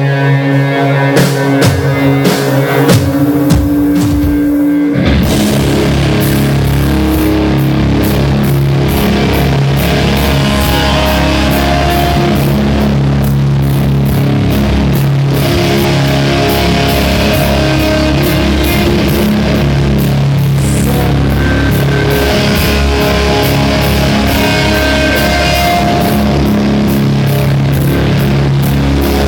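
Live heavy rock band playing loud, with distorted electric guitars holding sustained chords. About five seconds in, the drums and the full band come in with a steady pounding beat.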